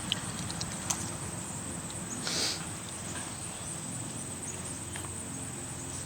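Insects droning in a steady high pitch over a low background hum. About two seconds in there is a short scrape, from the shovel digging in the soil.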